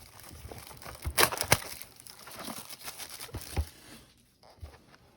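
Plastic shrink wrap being torn and crumpled off a cardboard trading-card box: irregular crinkling and crackling, loudest about a second in, dying down to a few faint crinkles near the end.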